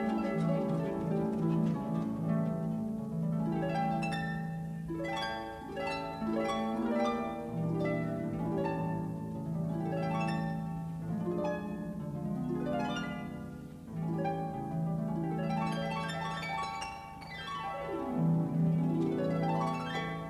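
Instrumental background music: a run of plucked string notes over held low notes.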